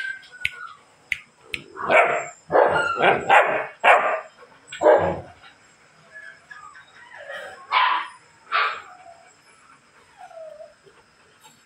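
Rottweiler puppy barking: a run of about six sharp barks in the first half, then two more after a pause, and a brief faint whine near the end.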